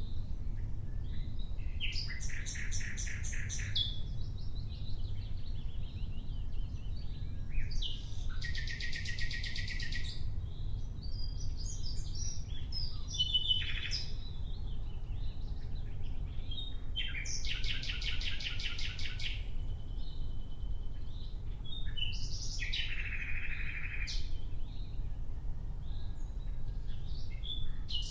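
Nightingale singing in separate phrases, several of them fast trills of rapidly repeated notes, with pauses filled by softer varied notes and one short held whistle. A steady low rumble runs underneath.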